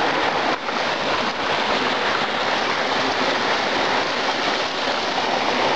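Steady rushing of running water over rocks, an even hiss with no break.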